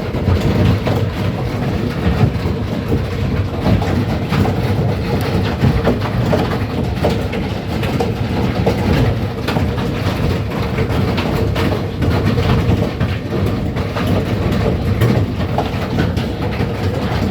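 Hailstorm: hailstones striking hard and fast, a dense clatter of impacts over a steady loud roar.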